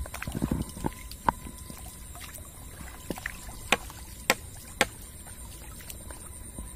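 Slow, careful wading through shallow floodwater: soft sloshing in the first second, then a few scattered small splashes and drips.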